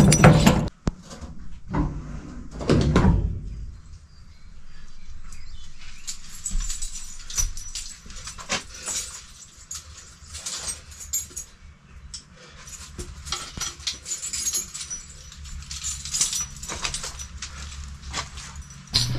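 A key and padlock rattling at the start, a louder scraping burst about three seconds in, then a long run of small knocks, clatters and rustles as equipment is moved about inside a metal storage container.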